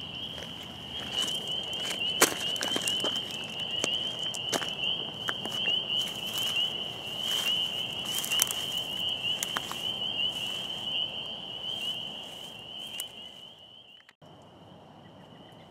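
Footsteps crunching through dry grass and leaves, growing fainter as the walker moves away, over a steady high-pitched trilling chorus of insects. Near the end the footsteps are gone and only a fainter insect chorus remains.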